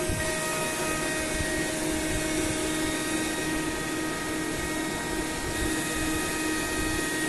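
Automatic centerless grinding line running: a steady machine drone with several constant whining tones over an even hiss.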